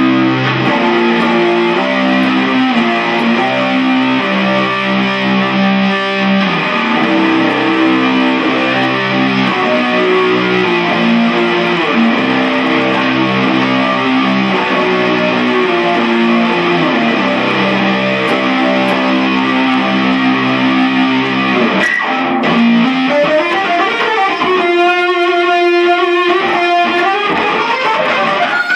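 Distorted electric guitar playing held notes and chords. Near the end the notes slide upward and waver in pitch.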